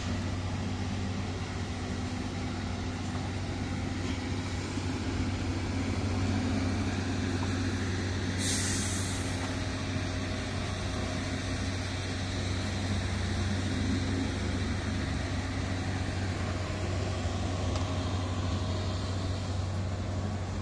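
Diesel engine of a Shacman heavy-duty truck idling steadily, with a short sharp hiss of air about eight seconds in.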